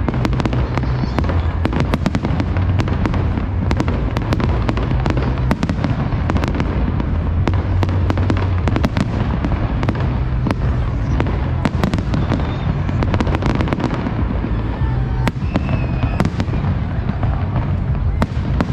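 Fireworks going off in quick succession: a dense, continuous run of sharp cracks and bangs over a steady low rumble.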